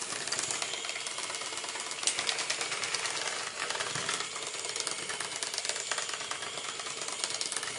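Six-legged iPhone-controlled robot beetle toy walking: its small motor and gear-driven legs clatter in a rapid, steady stream of clicks.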